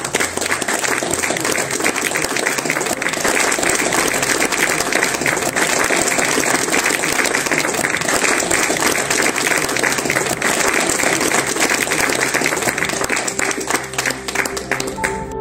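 Audience applause: many hands clapping steadily and densely, thinning out near the end.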